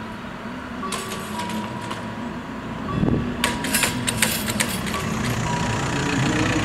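Level-crossing barrier booms coming down to the sound of the crossing's warning bells, which give short repeated tones. A burst of clattering about three and a half seconds in marks the booms settling, and a road vehicle's engine runs low underneath from about halfway.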